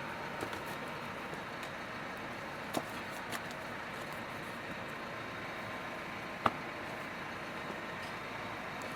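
Tractor engine idling steadily, with a few sharp clicks and knocks of handled parts, the loudest about six and a half seconds in.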